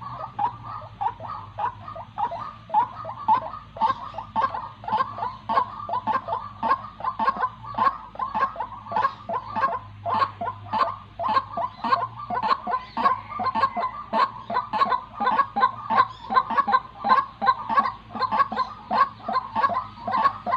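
Female white-breasted waterhen calling from its cage: a long unbroken run of quick repeated call notes, about three a second.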